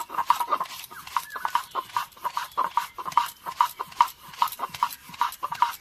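Stone roller on a flat grinding stone (shil-nora), worked rapidly back and forth over red lentils (masoor dal), crushing them into paste. The strokes come in an even, scraping-and-knocking rhythm, several a second.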